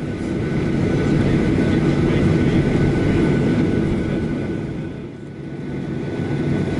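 Cabin noise inside a Boeing 737-800 taxiing: the steady hum of its CFM56 jet engines over a rumble from the rolling aircraft, easing briefly about five seconds in and then building again.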